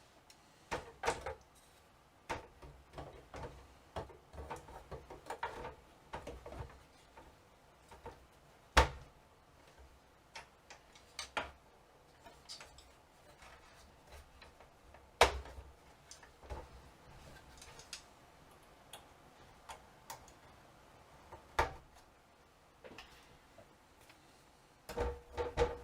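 Irregular clicks and knocks of computer parts being handled and fitted together, with two sharper knocks about 9 and 15 seconds in.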